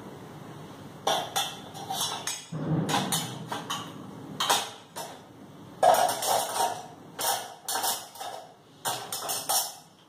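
Stainless steel vessels and ladles clinking and clattering against each other and the dishwasher's wire racks as they are loaded, a run of sharp, irregular metallic knocks and jingles starting about a second in.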